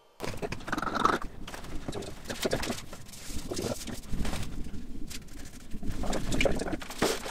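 Footsteps and irregular knocks on a wooden parquet floor, with rustling, as a person walks about and handles things. The sound starts abruptly out of near silence just after the start.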